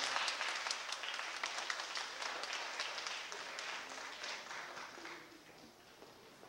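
Audience applauding: many hands clapping at once, the clapping thinning out and fading toward the end.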